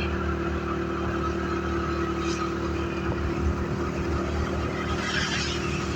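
Steady engine and road noise from a moving vehicle, a continuous drone with a constant hum and a brief hiss about five seconds in.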